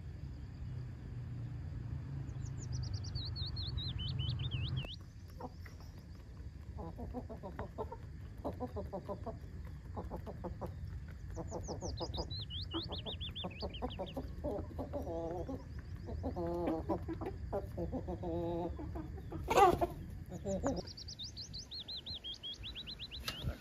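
Hens clucking in short repeated calls, while a songbird sings the same short phrase three times, a quick run of high notes falling in pitch. One sharp, loud knock comes near the end.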